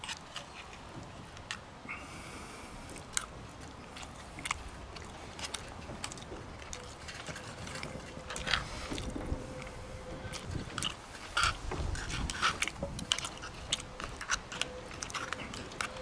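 A metal spoon scraping and clicking against the torn metal of an opened fish tin, with a person chewing; the clicks come more often and louder in the second half.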